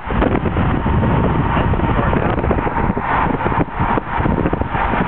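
Steady rumble and road noise of a car driving, with wind buffeting the microphone.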